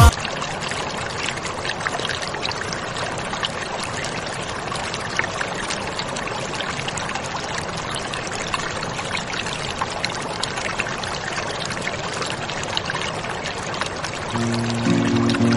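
Aquarium water trickling steadily, with many tiny splashes. Music comes in near the end.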